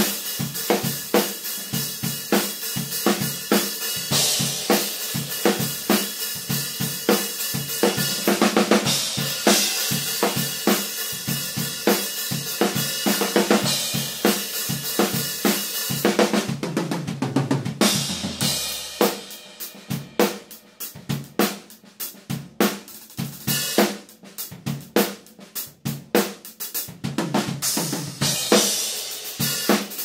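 Drum kit fitted with Saluda Nemesis Hybrid and Mist-X cymbals played as a solo: a dense run of snare, bass drum, hi-hat and cymbal hits that thins about two-thirds of the way through into sparser, separate strokes.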